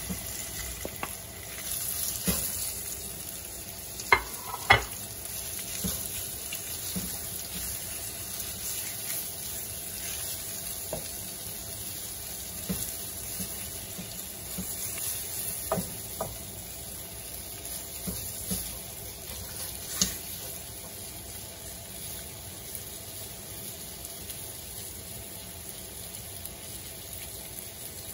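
Coated raw shrimp frying in hot oil in a nonstick pan: a steady sizzle, with a few sharp knocks of a wooden spatula against the pan, the loudest two about four seconds in.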